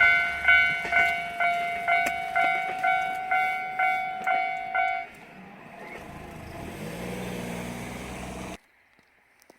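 Japanese railway level-crossing bell (the 'kan-kan' crossing signal) ringing at about two strikes a second, stopping about five seconds in. A quieter low steady hum follows for a few seconds and cuts off abruptly near the end.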